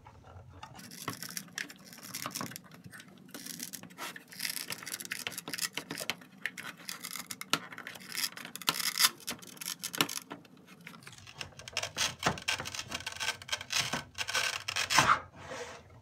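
A 12-volt sealed lead-acid battery being wiggled and pulled free of the Velcro strip that holds it in a plastic scooter battery case: scratchy tearing and rubbing with small knocks of the battery against the case, loudest in two bursts, about halfway through and near the end.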